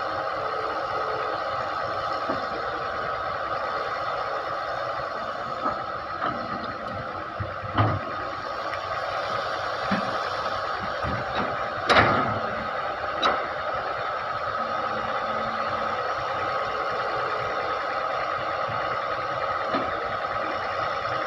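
Wheeled excavator's diesel engine running steadily while it works its bucket, with a few short clanks, the loudest about twelve seconds in.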